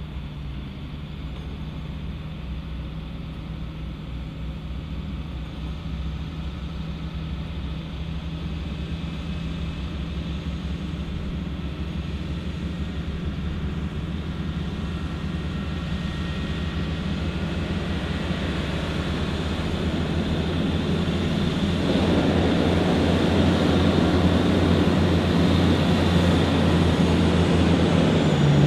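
A convoy of Oshkosh M-ATV armoured trucks and Humvees approaching on a gravel road: diesel engines running with a steady low hum and tyres on the gravel, growing steadily louder as the vehicles near, loudest over the last several seconds.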